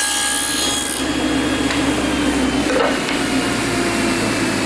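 Table saw with a 7/8-inch dado stack cutting a pass through a 1x6 board for about the first second, a harsh high cutting noise over the motor's hum. After that the saw keeps running free.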